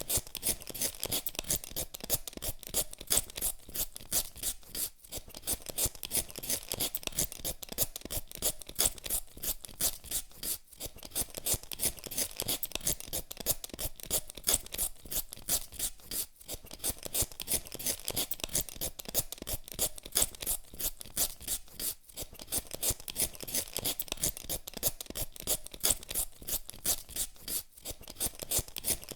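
Potatoes being peeled with a hand peeler: quick, repeated scraping strokes of the blade across the skin, with a short pause about every five or six seconds.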